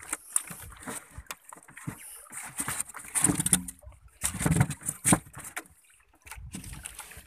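Irregular knocks, scrapes and rustles as styrofoam cooler lids are moved and a freshly caught dorado is laid in the cooler among skipjack tuna. The loudest clatter comes around the middle.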